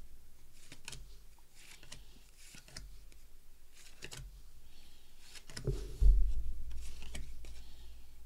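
Baseball cards being slid off a stack and moved one by one in the hands: soft papery swishes and light clicks of card stock, every second or so. A louder low thump comes about six seconds in.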